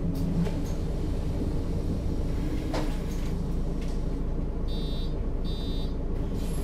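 Mercedes-Benz O 530 G Citaro G articulated bus engine running steadily, heard on board. About five seconds in come two short bursts of high electronic beeping.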